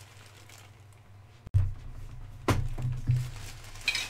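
Handling of a clear plastic bag of small plastic model-train parts: a sudden loud thump about a second and a half in and a few softer thumps a second later, then the bag crinkling as hands dig into it near the end.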